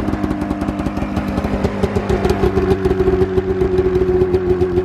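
Arctic Cat ZR 800 snowmobile's two-stroke twin-cylinder engine idling steadily while it warms up after a cold start from long storage.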